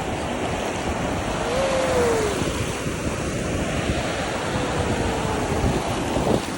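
Sea waves washing onto the shore with wind buffeting the microphone, a steady rushing noise. A faint tone slides down in pitch about two seconds in and again near the end.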